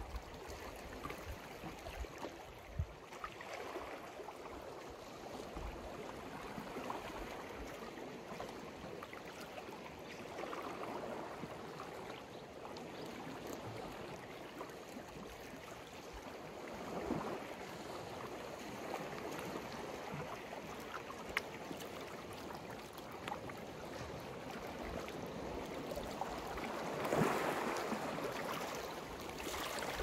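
Sea waves washing onto the shore: a steady wash that swells every several seconds, the biggest surge near the end.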